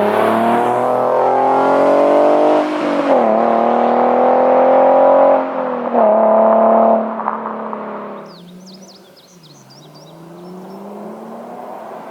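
Nissan 370Z's 3.7-litre V6 through a short-tail exhaust, pulling hard with rising revs. About three seconds in there is a gear change, then another long climb. Around seven seconds the driver lifts off, and the engine drops to a lower, quieter running note.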